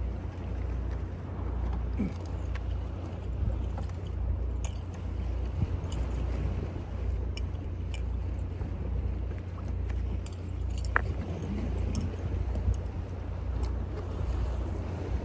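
Wind on the microphone: a steady low rumble that rises and falls, with scattered small clicks and taps from fishing tackle being handled.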